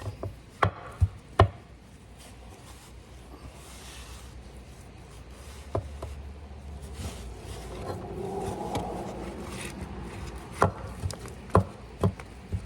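Hand work on machine parts with tools: three sharp knocks in the first second and a half, scraping and rubbing in between, then three more sharp knocks near the end.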